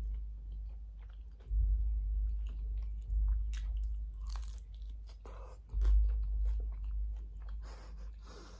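Close-miked chewing of crunchy fried corn tortilla, with sharp crunches and a deep rumble that swells with each new bite, about three times.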